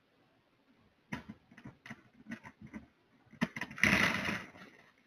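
A run of irregular knocks and clatters, then a louder rattling crash about four seconds in.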